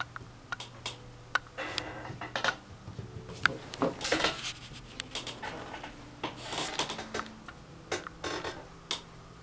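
A small puppy scrabbling on a fleece blanket and a wooden floor: irregular claw clicks, scratches and rustling of the fabric.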